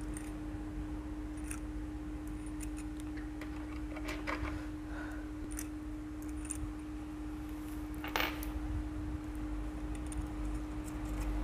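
Scattered light metallic clicks and clinks of hand tools and engine parts being handled during motorcycle engine reassembly, with one sharper clink about eight seconds in, over a steady hum.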